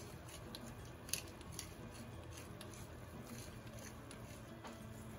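A pepper mill grinding black pepper over pork belly in a wok, making short crisp crunching clicks at irregular intervals over a low steady hum.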